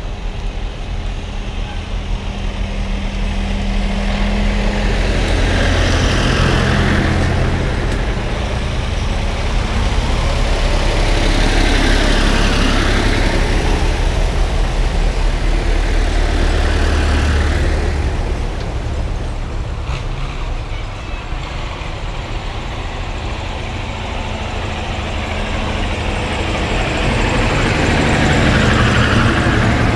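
Tractor engines passing one after another on a procession, several in turn. Each swells louder as it comes past and fades as it goes, over a steady engine hum from the tractors following behind.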